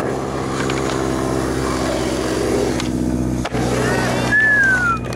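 Skateboard wheels rolling on skatepark concrete, a steady rumble throughout. A short falling whistle-like tone sounds near the end.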